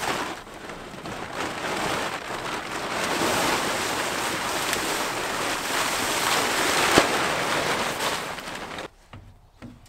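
Blue plastic tarp crinkling and rustling loudly as it is pulled off and dropped, with one sharp snap about seven seconds in, then the rustling stops.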